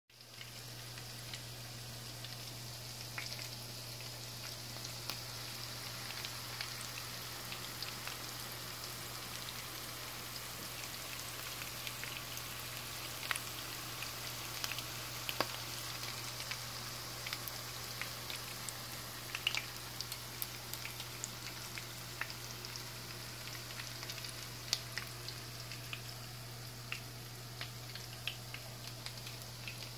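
Rolled chicken tacos frying in hot oil in a pan: a steady sizzle with scattered crackles and pops, over a steady low hum.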